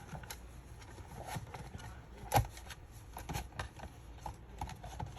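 Scattered small clicks and taps of a router's plastic parts, wires and tools being handled on a workbench, with one louder knock about two and a half seconds in.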